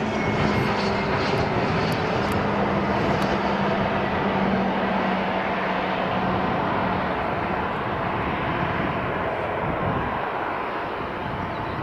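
Fixed-wing aircraft engines running: a steady, loud noise with a low hum that fades out about seven seconds in, the whole easing slightly near the end.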